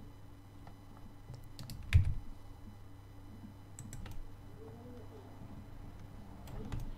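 Scattered computer keyboard and mouse clicks, a few at a time, with one louder knock about two seconds in, over a faint steady electrical hum.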